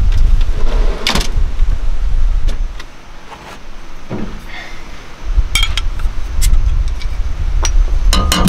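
Low wind rumble on the microphone that rises and falls in gusts, with scattered clicks and knocks of gear being handled at the back of a ute canopy. Near the end comes a quick cluster of sharp metallic clicks that ring briefly.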